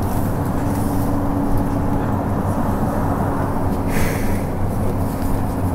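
LiAZ 6213.22 articulated diesel city bus running under way, heard from inside the passenger cabin: a steady low engine hum over road noise. A brief hiss comes in about four seconds in.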